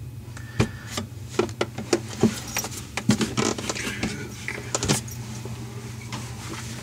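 Light metallic clicks and clinks, a dozen or so in about four seconds, from metal plumbing parts and tools being handled at a sink's shutoff valve and supply line, over a steady low hum.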